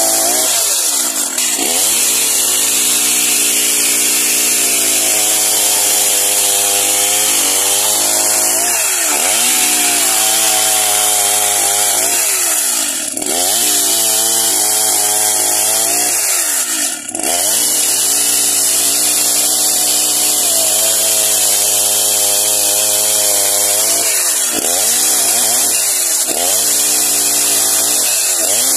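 Two-stroke chainsaw running at high revs while rip-cutting a log lengthwise into beams. Its engine pitch drops sharply every few seconds and climbs straight back as the chain loads up in the wood.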